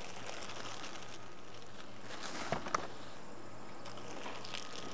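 Steady low outdoor background hiss with two faint, quick clicks about two and a half seconds in, from hands handling the circular saw in its plastic carry case.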